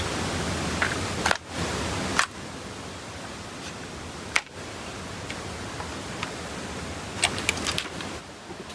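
Steady hiss of rain with scattered sharp clicks and taps, a quick run of them near the end.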